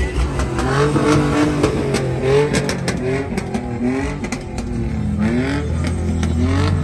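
Pickup truck engine revving over and over, a string of quick rising revs, with scattered sharp clicks.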